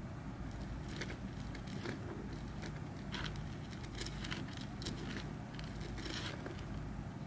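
Common rain frog burrowing into soil: short, scattered crackles and rustles of shifting soil, about seven or eight in a few seconds, over a steady low hum.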